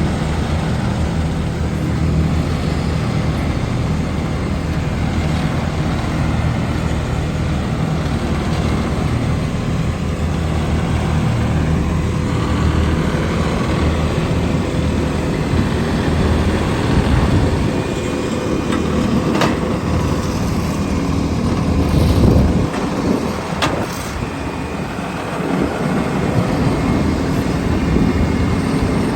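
Heavy diesel engines of road-paving machinery running steadily, with a couple of sharp metallic knocks late on.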